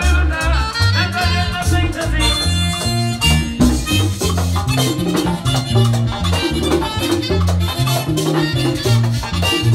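Live band playing Dominican accordion music: an accordion melody over a bass line and hand drums with a steady beat.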